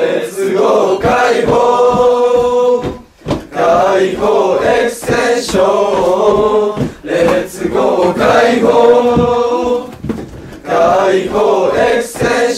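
Men's voices chanting in long held, sung phrases, about four of them, each some three seconds long with short breaks between.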